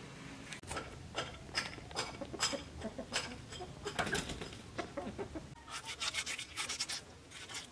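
Knife scraping scales off a whole fish on a wooden chopping stump: a series of scraping strokes, spaced out at first, then quick and close together for the last couple of seconds.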